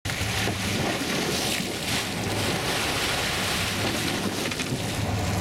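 Sea water churning and splashing beside a boat, with wind on the microphone and a low steady hum from the boat's motor.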